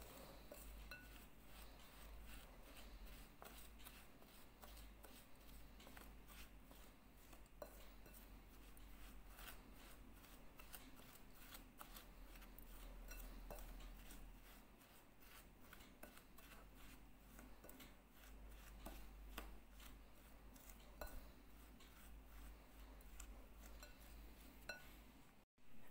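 Faint scraping and light clinks of a metal spoon against a glass bowl as it stirs moist biscuit crumbs, over a low steady hum.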